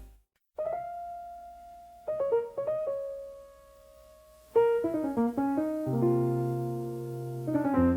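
Slow solo piano intro to a soul-blues ballad, starting after a brief silence: a single held note, a few sparse notes, then fuller chords from about four and a half seconds in, with low bass notes joining soon after.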